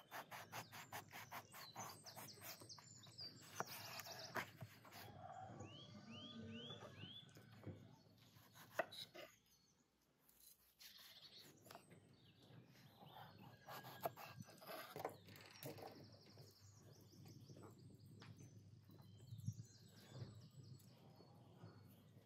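Kitchen knife slicing an eggplant on a wooden cutting board: faint, quick, evenly spaced taps of the blade on the board, then scattered knocks. A few bird chirps are heard about six seconds in.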